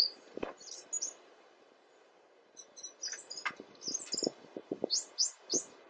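Small birds chirping in short high calls, with a few light knocks and clicks of wooden lumber pieces being handled and fitted together.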